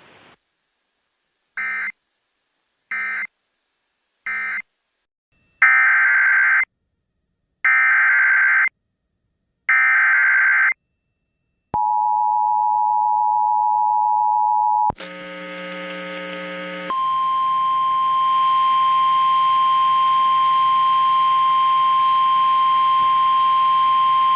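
Emergency Alert System tones: three short screeching data bursts, then three longer bursts of SAME header data about a second each, then the two-pitch EAS attention signal for about three seconds. After a brief noisy stretch, a single steady alert tone, the NOAA Weather Radio warning alarm, sounds until the next warning message begins.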